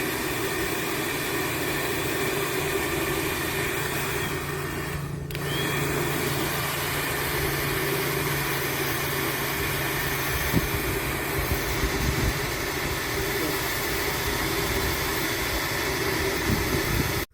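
Hair dryer running on full, a steady blowing rush of air over a low motor hum. It dips briefly about five seconds in and cuts off suddenly at the end.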